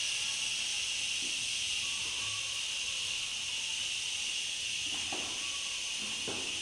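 A man breathing out one long, steady 'shhhh' hiss: the qigong healing sound for the liver.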